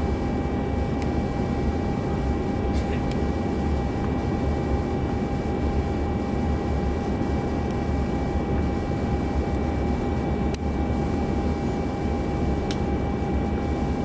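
Steady drone of a jet airliner in flight heard inside the passenger cabin: engine and rushing-air noise, heaviest in the low end, with steady whining tones held above it. A few faint clicks.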